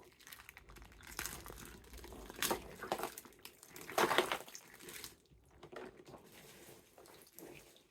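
Plastic toy packaging crinkling and rustling as it is handled and torn open, in irregular bursts with the loudest about four seconds in.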